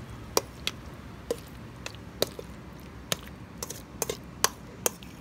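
A metal spoon clinking and tapping against the bowl and the stainless steel pot as dressed salad is scraped across: about a dozen sharp, irregular clicks.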